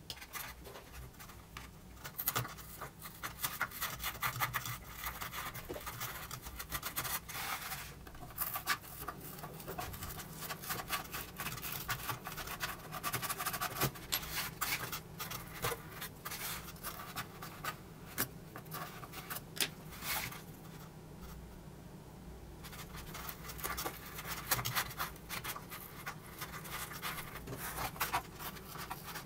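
Handling noise from a paper-faced foam board model aircraft fuselage: hands scraping and rubbing against the board with many small clicks and ticks as parts are fitted inside it. The sound eases off for a couple of seconds about 21 seconds in.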